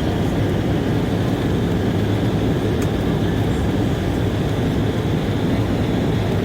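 Steady cabin drone of an Embraer E190 airliner in flight, its engine and airflow noise heard from inside the passenger cabin.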